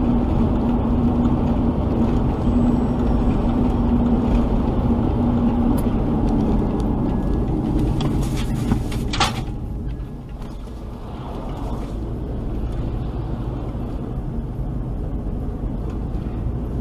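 Road noise of a car driving, heard from inside the cabin: steady engine and tyre drone with a low hum for the first six seconds or so. About nine seconds in comes a brief sharp sound, after which the drone runs on a little quieter.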